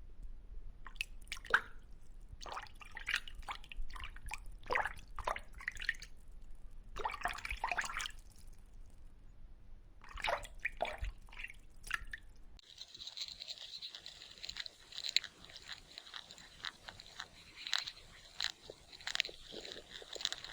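Irregular wet crunching and chewing, as of an animal eating, with a sudden change partway through to another clip of similar crackling chewing over a faint steady hiss.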